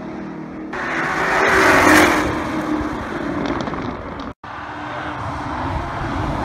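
2018 Corvette ZR1 test car's supercharged V8 running hard on track, swelling about two seconds in. The sound cuts out for an instant a little past the middle, then the engine is heard again.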